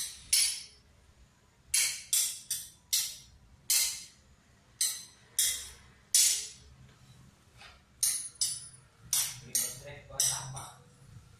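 Metal spoon scraping and clinking against a plastic bowl as meatball dough is scooped and pressed into fried tofu: about fifteen short, sharp strokes, with a pause of a second or so past the middle.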